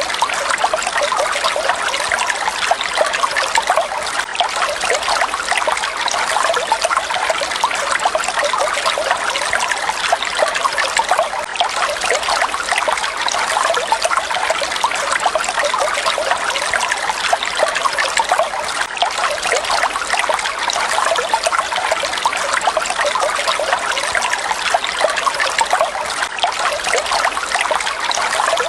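Falling water splashing steadily, an even, unbroken rush with a fine splashing texture.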